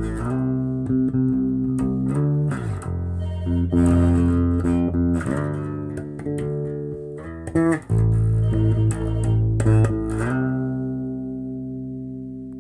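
Electric bass guitar played through a repaired Kustom KXB100 bass combo amplifier, sounding clean and working: held notes that change pitch several times, with a couple of slides between them. The sound cuts off suddenly at the end.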